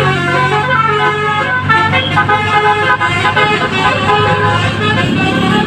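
Tour bus's multi-tone musical air horn playing a telolet tune: a quick run of short notes that change pitch every fraction of a second. The bus engine's low hum sits underneath during the first second or so.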